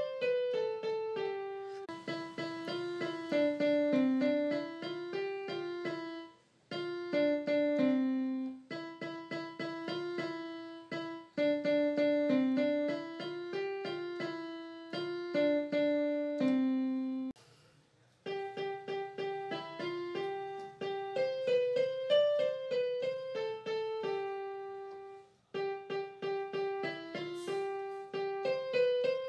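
Background music: a light piano-style keyboard melody of short stepping notes, which drops out briefly three times.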